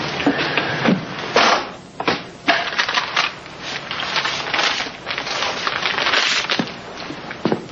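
Dense crackling noise full of irregular clicks and pops.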